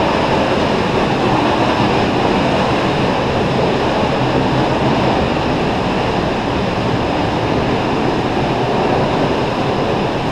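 Waterfall pouring: a steady, really loud rush of falling water heard from under the rock overhang behind the falls.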